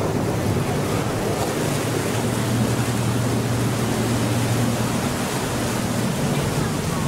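Steady noise of a sightseeing boat under way on a canal: a low engine hum with rushing water and wind noise on the microphone.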